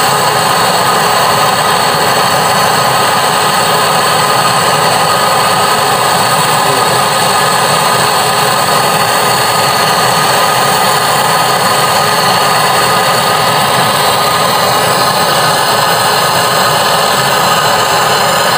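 Brazing torch flame hissing steadily as it heats the brazed copper pipe joints on an air-conditioner compressor, melting them loose so the faulty compressor can be removed.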